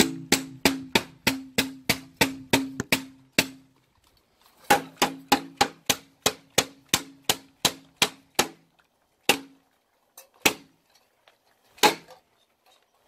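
A plastic PET bottle being banged hard and fast, about four sharp smacks a second, each with a short low ring. After a brief pause there is a second run of smacks, a little slower. Near the end come three single smacks, a second or more apart.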